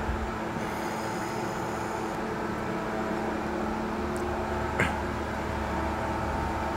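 Steady mechanical room hum, with a single short click about five seconds in.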